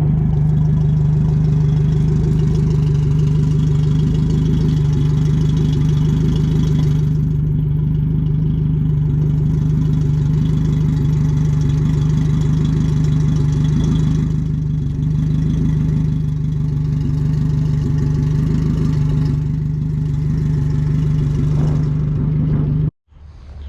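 Boat outboard motor running steadily on flushing muffs, out of the water with hose water feeding its intake. The steady hum stops abruptly near the end.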